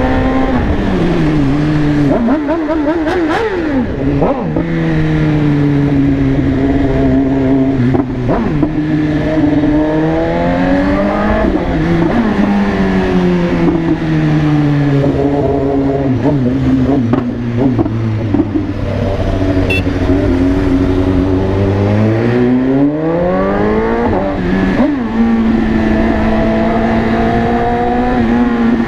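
BMW S1000RR's inline-four engine running under way, its revs easing down for long stretches and climbing sharply several times as the throttle is opened.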